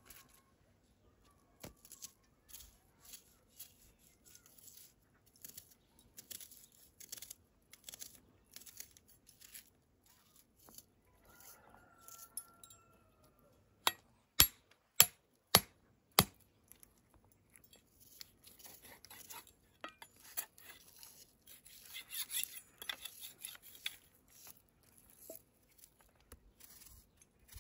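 A large kitchen knife chopping raw meat on a wooden cutting board: about five sharp, loud chops roughly half a second apart around the middle. Before and after them come faint clicks and crackles of food being handled.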